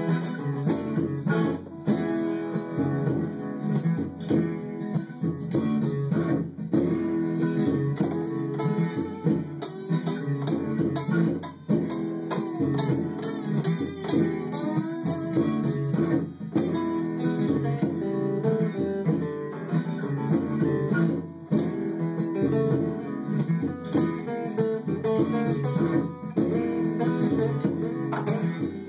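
Acoustic guitar played solo without singing, strummed and picked.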